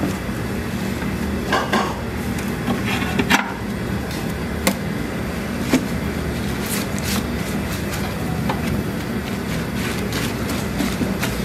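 Gloved hands mixing green onions into thick chili seasoning in a large metal basin: wet squishing with scattered sharp clicks and taps against the basin, over a steady low hum.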